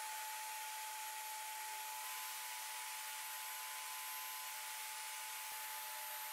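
Jobsite table saw running, a steady motor whine over an even hiss, as plywood is fed through the spinning blade.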